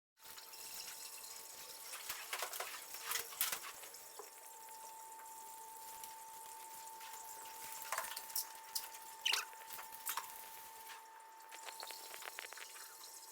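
Water from a hose-end foam gun spraying onto a car, with a steady hiss, scattered splashes and drips, and a faint steady whine underneath.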